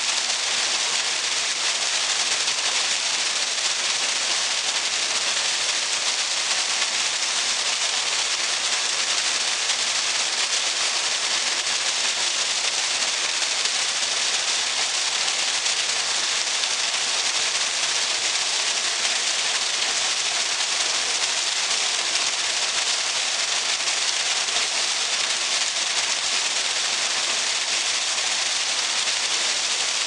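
Steady splashing hiss of a narrow stream of water falling into a shallow pool, an artificial waterfall.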